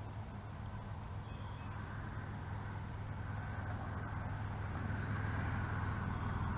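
Steady low engine or motor hum that grows slowly louder.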